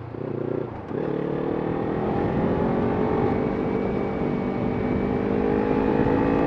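Kawasaki Ninja 300's parallel-twin engine, with an Arrow aftermarket exhaust, pulling under acceleration while riding. After a brief break about a second in, its pitch rises slowly and steadily.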